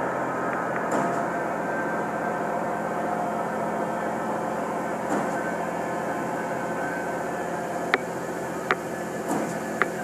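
Construction machinery at a concrete pour running steadily. Three short, sharp knocks come in the last two seconds.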